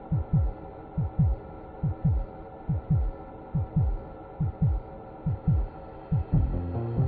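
Heartbeat sound effect: pairs of low lub-dub thumps, a little under one pair per second, over a steady droning hum. Low music notes come in near the end.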